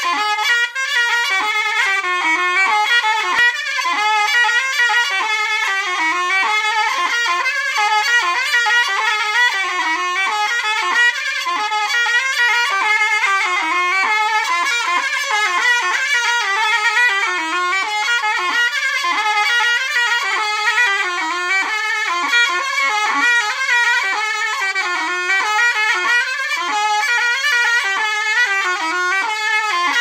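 Solo zurna, the Turkish double-reed shawm, playing a loud, bright folk melody full of quick ornamental turns, without a break and with no drum.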